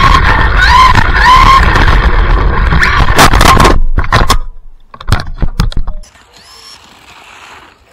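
Brushless electric motor of a Laegendary Sonic RC car whining, its pitch rising and falling with the throttle, over the rush of tyres on wet pavement, heard from on board. About three and a half seconds in, a run of sharp knocks as the car crashes and tumbles, then a few scattered knocks, and from about six seconds in only a faint outdoor hiss.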